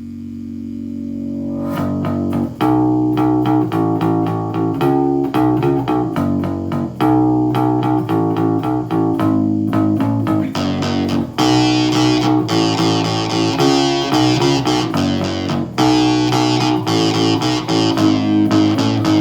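Instrumental guitar music with bass. It swells in over the first two seconds, then a picked guitar figure repeats in phrases of about four and a half seconds, and a brighter, hissier layer joins about ten seconds in.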